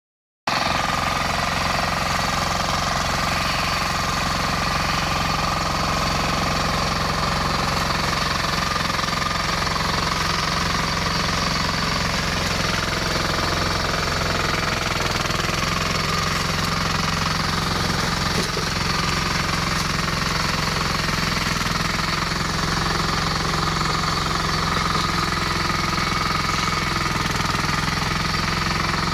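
18 hp diesel engine of a flail mower running steadily, at an unchanging speed.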